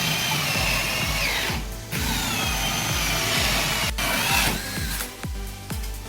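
A power tool whines at a high pitch that sags and recovers, cutting out twice, over background music with a fast, steady kick-drum beat.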